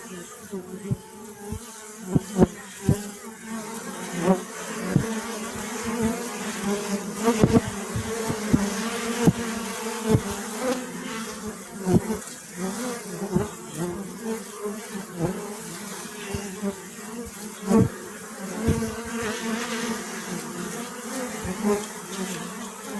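Many bees buzzing together in a steady, even hum, with frequent sharp clicks and taps scattered through it.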